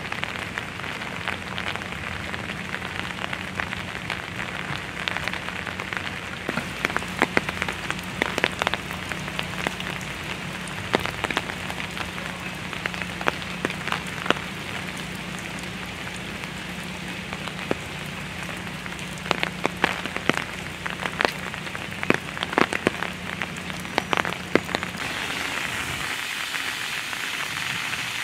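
Steady rain falling on wet pavement and leaves, with scattered sharp drop taps close by. A steady low hum runs underneath and stops near the end.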